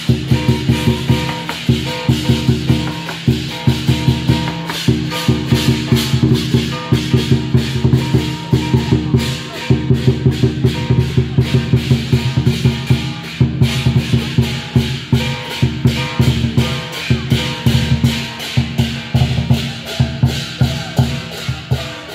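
Lion dance percussion: a large Chinese lion dance drum beaten in a fast, driving rhythm with clashing hand cymbals over it.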